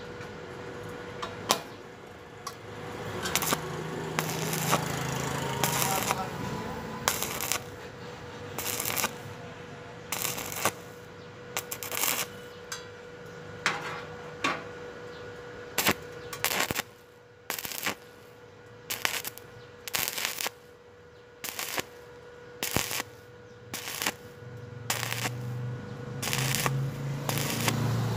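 Stick (arc) welding on thin sheet-metal square tube, done in short stitch bursts: the arc crackles and sizzles for a fraction of a second at each strike, then stops, roughly once a second. A steady faint hum runs underneath.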